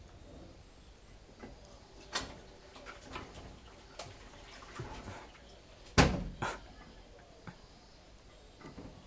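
Washing machine at work: water sloshing in the drum with scattered light knocks, and a loud knock about six seconds in followed by another half a second later.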